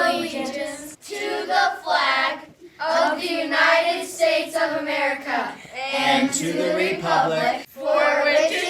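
Children singing together in a small group, phrase by phrase with short breaks between lines.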